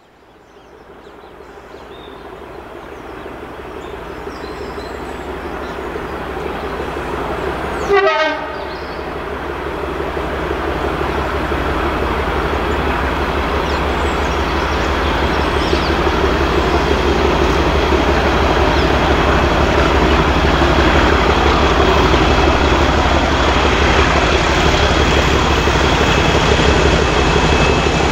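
Class 37 diesel locomotive with its English Electric engine hauling a rake of coaches toward the listener, engine and wheels on the rails growing steadily louder. A brief sharp sound breaks in about eight seconds in.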